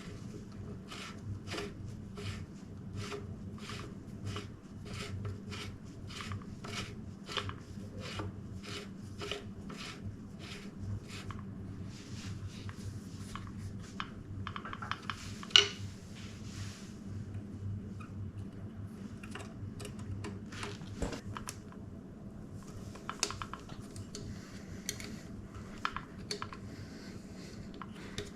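Rhythmic rubbing strokes, about two a second, for the first dozen seconds, then a stretch of scraping with one sharp click about halfway through and scattered clicks after. A steady low hum runs underneath.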